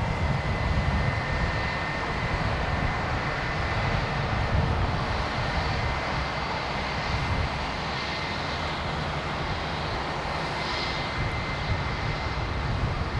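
Airbus A320 jet engines running, heard as a steady rumble with a thin high whine held on one pitch.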